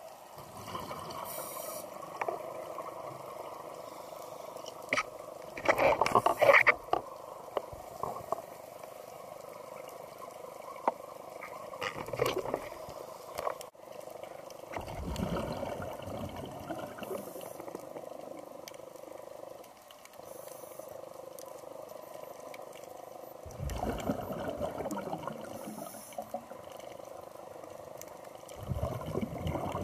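Muffled underwater sound heard through a camera housing. Several louder rushing surges of water come a few seconds apart, the loudest about six seconds in.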